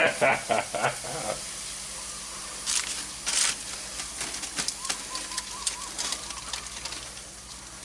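Pork ribs sizzling and crackling in the barbecue, with fine ticking and a couple of louder hissing bursts about three seconds in.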